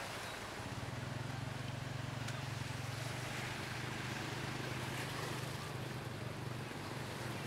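A small motorbike engine runs steadily, with a low, even hum, as it drives through a flooded street. Water swishes and splashes around the wheels.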